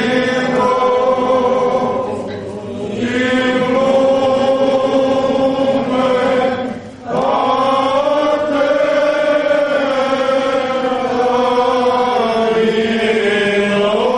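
Byzantine chant sung by male voices, long held notes that bend slowly in pitch, with a short break for breath about halfway through.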